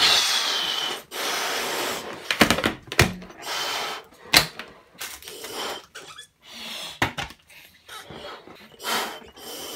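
A person blowing hard into latex party balloons to inflate them: long rushing puffs of breath, about a second each, with a few sharp clicks and knocks between puffs.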